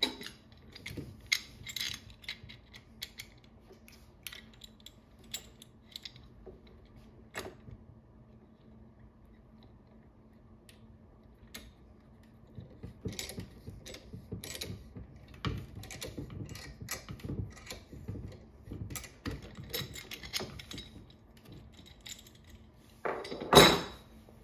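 Clicks and light rattles of plastic and metal parts as a screw is turned by hand through the clamp of a folding chair's armrest hook, busiest in the middle stretch. A louder clatter near the end.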